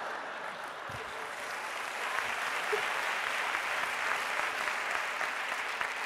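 Theatre audience applauding after a punchline, the clapping swelling over the first couple of seconds and then holding steady.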